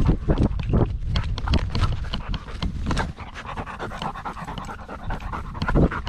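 A dog panting hard and close, a fast, regular run of breaths about three a second.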